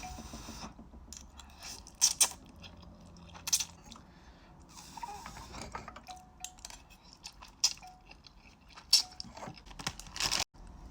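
Close-up eating sounds of Shin Ramen instant noodles: chewing and crunching, with a few sharp clicks scattered through.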